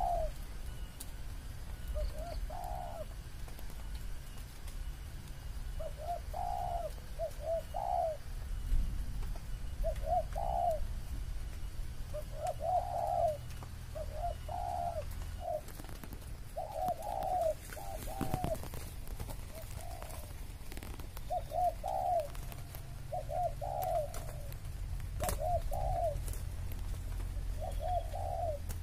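Spotted doves cooing: short phrases of a few mellow notes, repeated every second or two.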